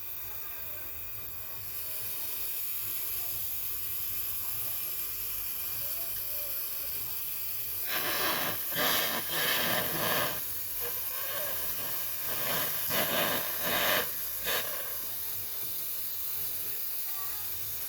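Steady high hiss of pressurised gas escaping from refrigerator pipework, with a run of several louder short spurts of hissing about halfway through.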